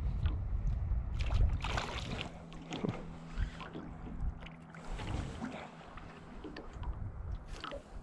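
Wind rumble on the microphone for the first two seconds, then scattered splashes and knocks of water and hands at the side of a small metal boat, where a small fish is brought to the boatside.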